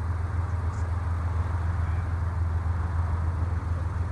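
Norfolk Southern GE ES44AC diesel locomotive hauling an intermodal train, its engine giving a steady, deep low rumble with a rushing haze above it.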